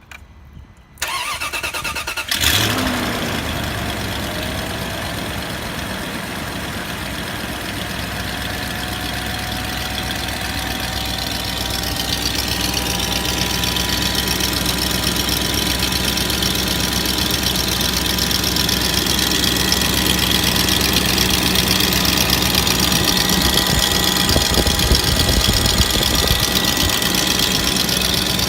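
A 2004 Range Rover's BMW M62TU 4.4-litre V8 is cranked by the starter and catches about two seconds in, then runs steadily at idle, getting slightly louder as it goes. The idle is rough, with camshaft timing fault codes P0011 and P0012 after a full timing-chain and VANOS seal job.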